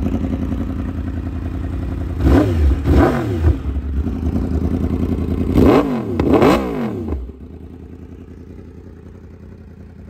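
Yamaha YZF-R1's crossplane inline-four idling through an SC Project aftermarket exhaust, blipped four times in two quick pairs of revs. The sound drops away sharply about seven seconds in.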